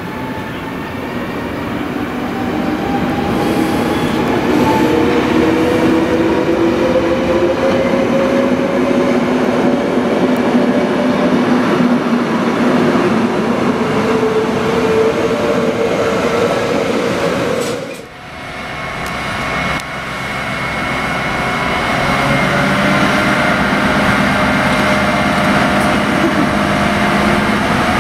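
Class 203 diesel locomotive running as it draws slowly past, its engine note sliding gradually in pitch. The sound breaks off sharply about two thirds of the way through, then the engine is heard again close up with a steadier note.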